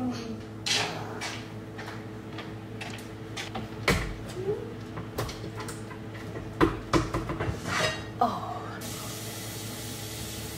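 Irregular knocks, clicks and light clatter of things being handled, over a steady low hum.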